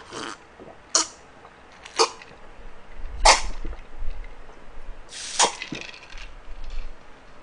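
A man drinking a glass of apple vinegar drink with short, sharp gulps and breaths, about one a second. A longer, harsher breath out comes about five seconds in, as he winces at the sourness.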